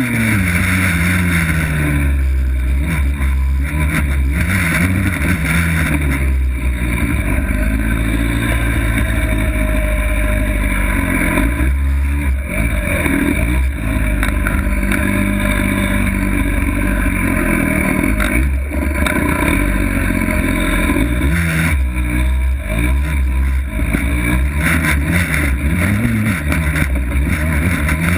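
49cc Suzuki minicross's small two-stroke engine running under load over rough ground, revving up and dropping back again and again as the throttle opens and closes.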